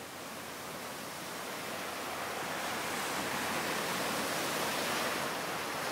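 A steady rushing hiss with no tones, slowly growing louder.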